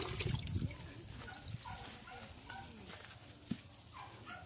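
Scattered short animal calls in the background, a few brief pitched cries repeating at irregular intervals. Louder low handling noise in the first second, and a single small knock a little after the middle.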